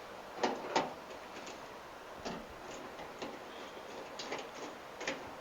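Irregular sharp clicks and light taps of hand tools and small metal hardware being handled, the two loudest close together about half a second in.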